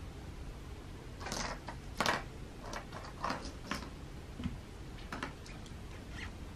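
Soft scuffs and taps of a cat's paws on a hardwood floor as it moves after a toy cockroach. A cluster of short scrapes comes between about one and five seconds in, the loudest near two seconds.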